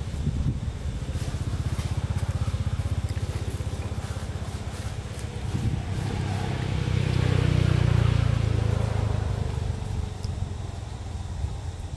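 A motor vehicle's engine running with an even low pulse, swelling to its loudest about eight seconds in and then fading, as of a vehicle passing by.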